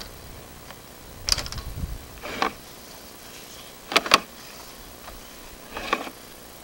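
Handling noise from a sewer inspection camera being pushed down a drain line: a few short scrapes and knocks, with two sharp clicks close together about four seconds in.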